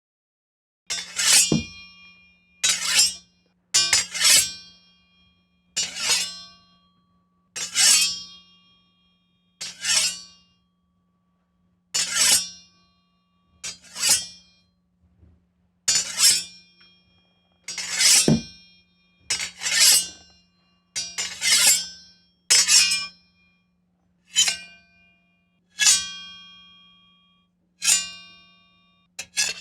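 Sword blade drawn from and slid into its scabbard again and again, each stroke a sharp metallic scrape ending in a ringing "ching" that dies away. They come roughly every two seconds, some in quick pairs.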